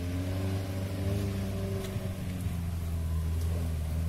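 Engine of an off-road 4x4 vehicle running on a muddy track, a steady drone whose pitch wavers slightly up and down.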